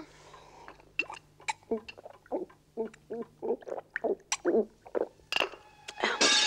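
Exaggerated gulping as someone drinks with head tipped back, a rapid even run of swallows at about three a second. Near the end a loud hissing rush with a whistle tone cuts in.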